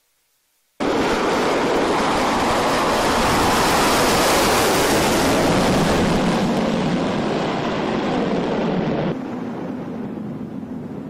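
Twin-engine J-15 fighter's jet engines running at full thrust for a carrier takeoff: a loud, even rushing noise that starts abruptly about a second in. About nine seconds in it drops to a quieter steady rush.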